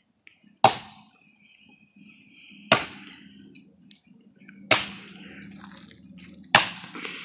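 Axe chopping into a wooden log to hollow it out, four sharp strikes about two seconds apart.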